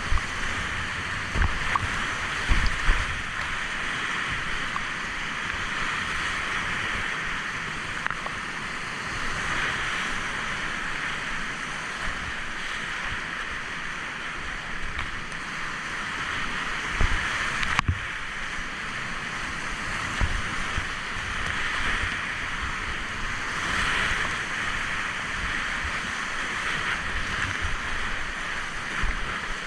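Fast mountain river water rushing steadily, with wind now and then buffeting the microphone in low thumps.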